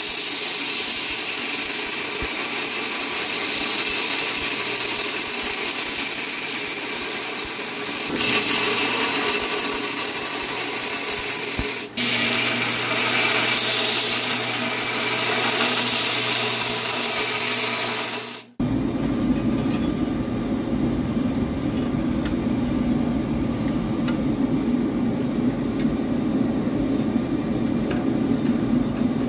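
Belt grinder running as a copper-clad steel knife blade is ground against its belt to cut the bevels, a steady dense grinding. After about 18 seconds it cuts off sharply and a steady low rushing roar takes over.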